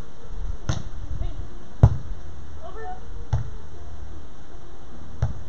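A beach volleyball is struck by players' hands and arms during a rally: four sharp hits a second or two apart, the second the loudest. Faint voices call in between.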